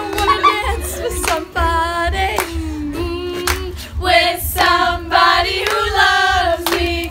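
A group of girls singing together loudly, with sharp hand claps throughout.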